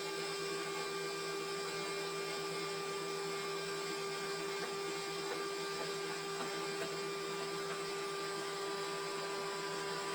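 Sawmill machinery running steadily: a constant motor hum and whine that holds one pitch throughout.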